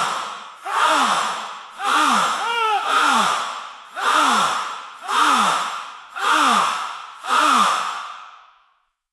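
A crowd gasping, a breathy 'ohh' from many voices at once that falls in pitch and fades, repeated about once a second, some seven times.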